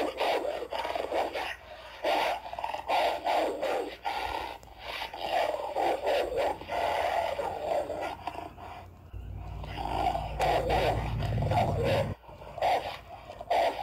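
Canine snarling and growling in repeated rough bursts, the sound of a dog fight, with a deeper rumbling growl from about nine to twelve seconds in.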